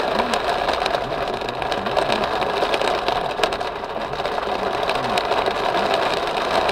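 Hail drumming on a car's windshield and roof, a dense rapid patter of small hits heard from inside the cabin.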